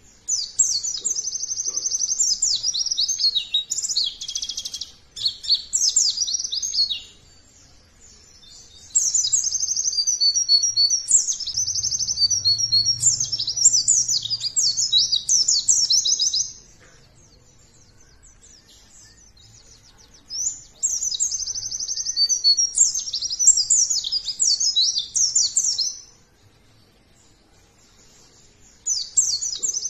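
Pleci (white-eye) singing in long bursts of rapid, high twittering song, three phrases of several seconds each with short pauses between, and a fourth starting near the end.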